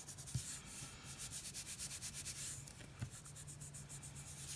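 Fingers rubbing quickly back and forth over a paper sticker on a planner page, pressing it flat. The strokes are soft and scratchy, about ten a second; they pause about two and a half seconds in and start again near the end.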